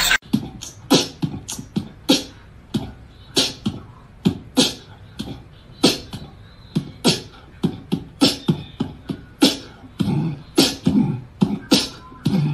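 A rhythmic percussive beat of sharp clicks over low thumps: strong hits about every second and a bit, with lighter ticks between.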